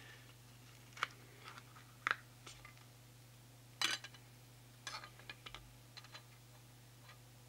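Small, faint clicks and taps of fingers handling the plastic turnover stylus in a record deck's ceramic cartridge: about a dozen scattered clicks, the sharpest at about one, two and four seconds in, over a faint steady low hum.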